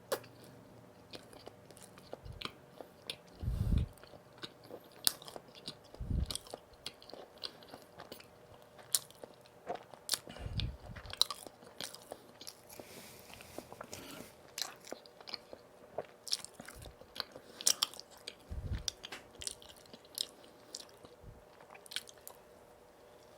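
Close-miked eating of donuts: bites and chewing with many small wet mouth clicks. A few brief low thuds come in between.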